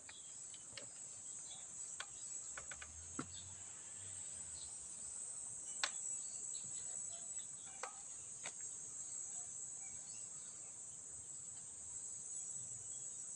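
Steady high-pitched insect chorus, with a few sharp clicks and faint scattered chirps that may be birds.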